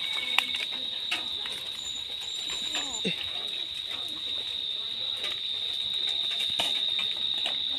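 Steady high-pitched drone of insects, with scattered clicks and rustling of dry palm fronds as a puppy is grabbed and lifted. A short falling squeak comes about three seconds in.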